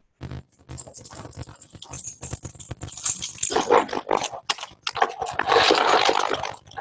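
Rustling, rubbing and knocking right against a microphone, as if it is being handled or unclipped. The noise is irregular and grows louder about halfway through.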